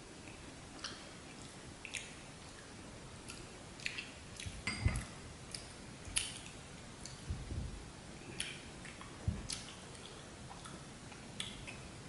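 Close-up eating sounds: scattered small clicks and chewing noises, with a few dull knocks as porcelain bowls are handled on the table, the loudest about five seconds in. Near the end a metal spoon scrapes and clinks in a porcelain bowl.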